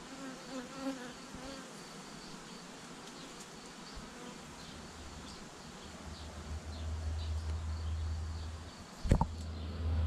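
Honeybees buzzing around an open hive, with a bee's hum wavering close by in the first second or so. A low rumble comes in from about six seconds, and a single sharp knock about nine seconds in is the loudest sound.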